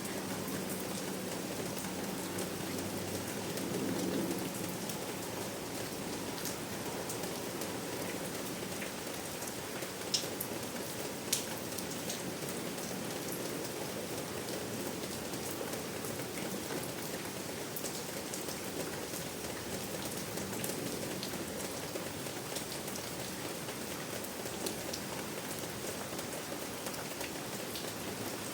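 Steady rain falling on a surface, an even patter with scattered sharper drops, two of them louder about ten and eleven seconds in.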